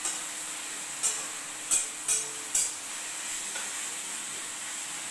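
Chopped onions sizzling in oil in a steel kadai as they are fried toward golden brown, with a steady hiss. A metal spoon scrapes and knocks against the pan four times, sharp and brief, in the first few seconds.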